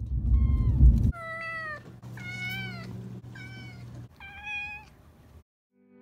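A pet cat meowing five times in a row, about one meow a second, each a clear call with a sliding pitch. These are the meows that the owners say are mostly begging for food. A loud low rumble sits under the first meow, and a faint low hum runs behind the middle ones.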